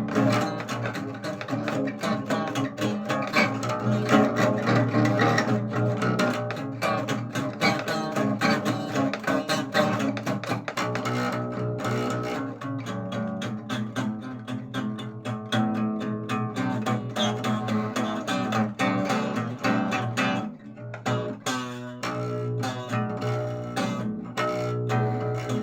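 Instrumental music on string instruments, many plucked notes in quick succession over a steady bass line.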